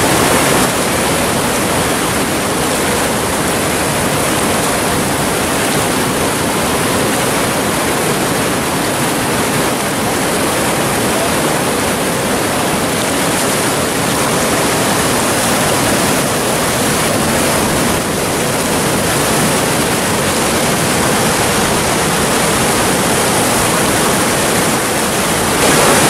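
Whitewater rapids rushing: a loud, steady wash of churning water.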